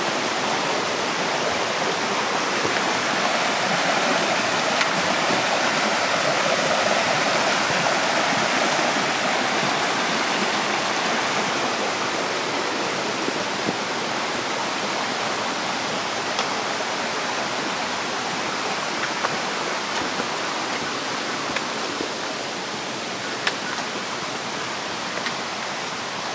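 Mountain stream rushing, a steady water noise that swells a few seconds in and then slowly fades.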